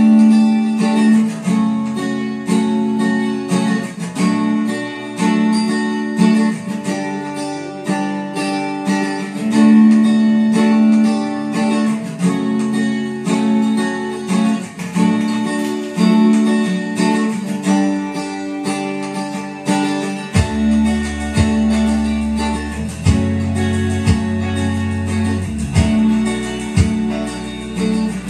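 Karaoke backing track playing from a TJ Media TKR-305P hard-drive karaoke player: strummed acoustic guitar carrying the song, with a bass line coming in about two-thirds of the way through.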